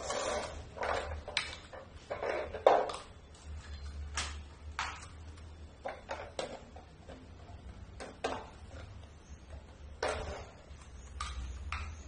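Plastic toy trucks being handled and knocked together on a tile floor: irregular clicks, knocks and short scrapes, with one sharp knock a little under three seconds in.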